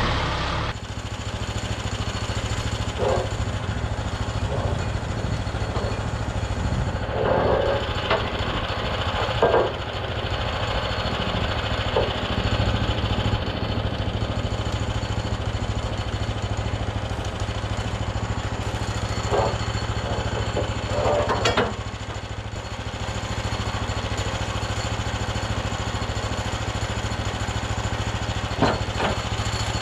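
Portable bandsaw mill's small gasoline engine running steadily, with a handful of short knocks and scrapes scattered through.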